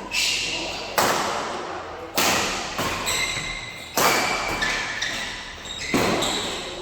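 Badminton rally: rackets strike the shuttlecock about once a second, each sharp hit echoing and fading before the next, with short high squeaks between hits.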